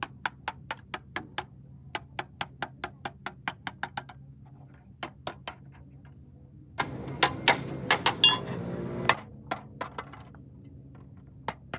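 Hammer striking metal in quick, even taps, about five a second. About seven seconds in comes a louder two-second spell of harder, denser blows with ringing metal, then a few scattered taps.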